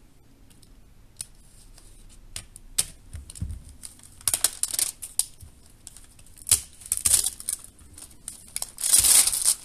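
Plastic packaging being torn open and unwrapped by hand: scattered clicks and crinkling, with a longer, louder rustle near the end.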